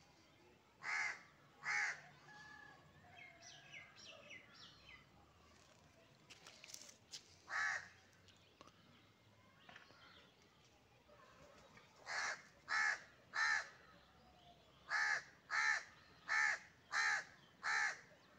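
A crow cawing: harsh, evenly spaced caws in groups, two near the start, a single one, then a run of three and a run of five near the end, about one and a half caws a second within a run. Faint chirps of a small bird come in between the first caws.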